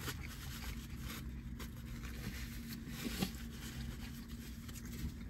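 Faint eating sounds, soft chewing clicks and rustles, over the steady low hum of a car's cabin.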